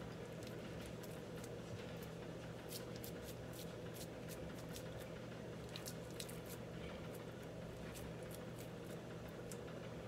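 Bare hands patting and pressing raw ground-meat meatloaf mixture into a loaf: faint wet squishing with many small sharp smacks, over a steady low hum.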